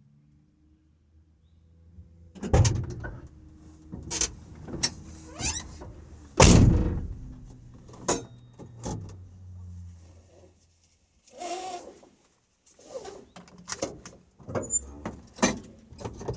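Door clunks and knocks of a van, with clicks and rustling between them, like someone climbing in before starting it; the loudest thump comes about six seconds in.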